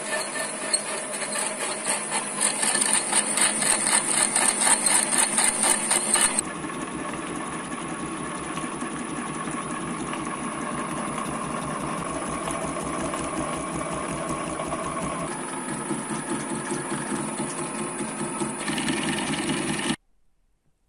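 TV-7M school lathe running with a milling attachment, an end mill in the chuck cutting metal clamped in the attachment's vise. A fast, even chatter for the first six seconds gives way to steadier machine running, which stops abruptly near the end.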